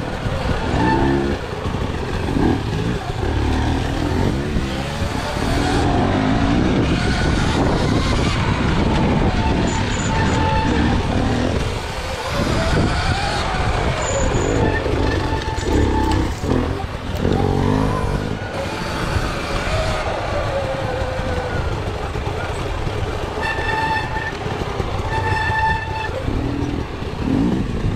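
Dirt bike engine running on a rough single-track trail, its revs rising and falling as the throttle is worked.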